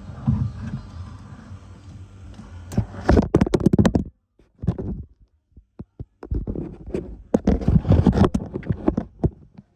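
Rustling, scraping and knocking handling noise from the hand-held camera being moved and repositioned. It comes in three bursts of close clicks and scrapes, with dead quiet between them.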